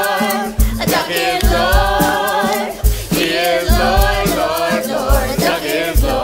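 Musical-theatre cast singing together in chorus over a drum beat.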